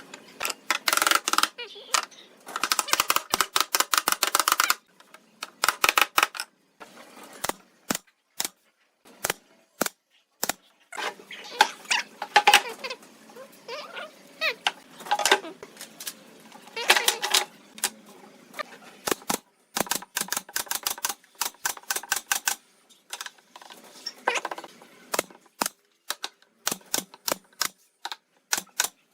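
Woodworking work on wood: an irregular run of sharp clicks, taps and knocks. They come in dense clusters in the first five seconds and twice more around the middle, then thin out to scattered single taps.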